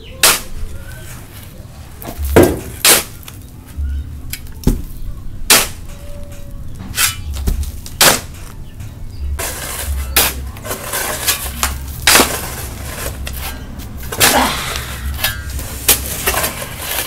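Shovels scraping sand and striking the metal bed of a pickup truck: irregular sharp metallic clanks every second or two, with denser scraping in the second half.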